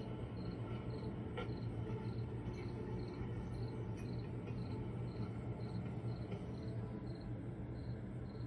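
A cricket chirping steadily, about two short high chirps a second, over a low steady hum.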